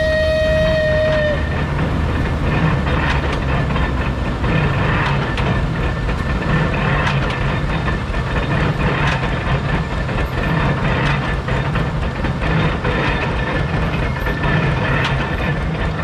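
Oliver stationary hay baler running, with a steady low rumble and a knock about every two seconds as the plunger strokes and compresses straw. A loud whistle is held at the start and cuts off about a second and a half in.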